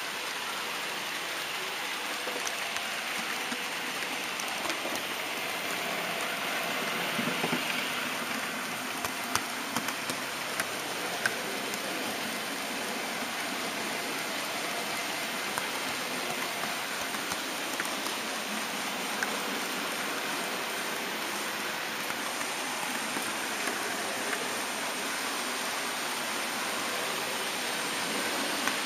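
HO scale model train running along its track, heard from a small camera riding on it: a steady rushing noise of wheels and motor, with a few sharp clicks from the wheels over rail joints, most of them about a third of the way in.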